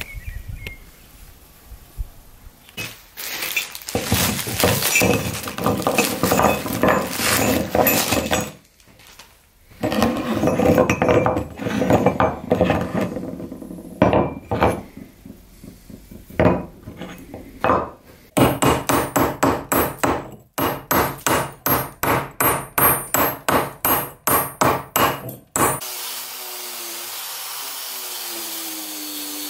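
Rusty iron railroad spikes clanking as they are set down on a workbench, followed by a run of regular metal strokes, about two or three a second for some seven seconds. Near the end an angle grinder starts and runs steadily.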